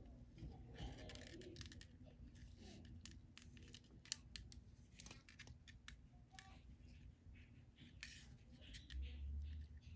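Near silence with faint, scattered clicks and scratches of fingers handling and pulling monofilament fishing line while tying a knot, and a short low bump near the end.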